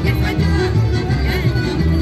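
Serbian folk dance music for a kolo, playing continuously.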